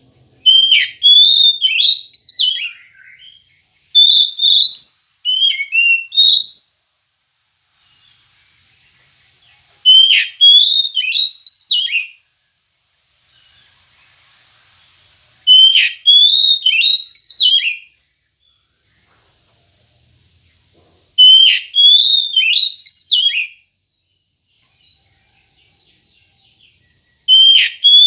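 Oriental magpie-robin singing: six loud bursts of quick, gliding whistled phrases, each about two seconds long, with pauses of a few seconds between them and faint soft twittering in the pauses.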